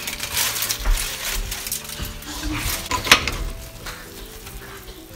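Aluminium foil crinkling as it is pulled off a steel stockpot, with sharp metal clinks of the lid and a spoon about once a second, then a spoon scraping and stirring through cooked biryani rice in the pot.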